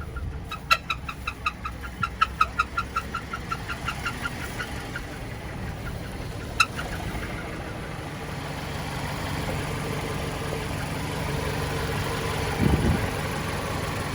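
A 2013 Dodge Avenger's 2.4-litre four-cylinder engine idling with rod knock and piston slap. A fast, ringing metallic knocking of about five taps a second fades out over the first few seconds, leaving a steady hum; there is a single sharp tap a little later and a low thump near the end.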